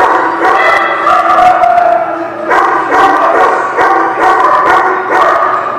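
Dogs barking and howling, several voices overlapping in a continuous din with almost no break.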